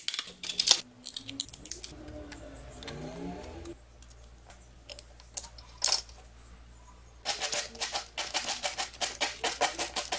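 Tin snips cutting thin sheet metal, a few sharp snips in the first second. From about seven seconds in, a small cut metal disc is rubbed back and forth on sandpaper in quick, even strokes to smooth its edge.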